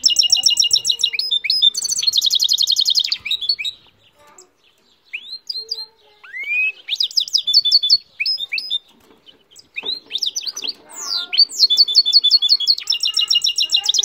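Goldfinch × canary hybrid (a mule) singing: fast trills of rapidly repeated high notes, a short pause about three and a half seconds in, then scattered rising whistles and chirps before the fast trills return near the end.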